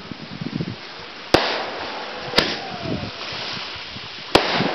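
Aerial fireworks going off: three sharp bangs, the second about a second after the first and the third about two seconds after that.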